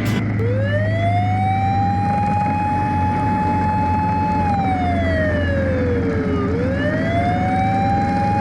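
A siren wailing: its tone rises and holds high, glides slowly down a few seconds in, then climbs again near the end. A steady low hum runs underneath.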